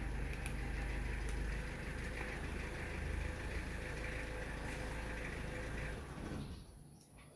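Steady motor rumble with a hum, fading away about six seconds in, with a few faint clicks over it.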